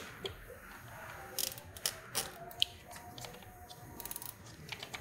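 Nylon cable tie being pulled tight through its lock, its teeth clicking in quick runs of ticks, twice, among small scattered handling clicks.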